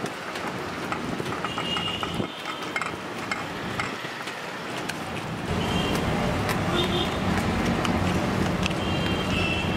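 Pav bhaji being mashed and stirred on a flat tawa with a metal masher: repeated scraping and tapping of metal on the griddle, over street noise with voices. The background gets louder and deeper about halfway through.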